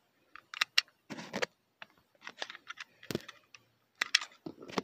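Scattered plastic clicks and taps from a McDonald's Inside Out 2 Disgust Happy Meal toy being worked by hand, as it is tried with its discs. The toy is not working well.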